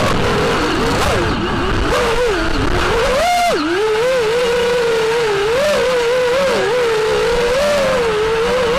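FPV quadcopter motors and propellers whining, the pitch wavering up and down with the throttle, with a quick sharp rise and drop about three seconds in, over a steady rushing noise.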